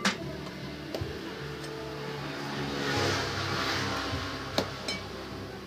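A motor vehicle passing by: its engine and tyre noise swells to a peak around the middle and fades. A few sharp metal clicks, of a tyre lever against a motorcycle wheel rim, stand out over it.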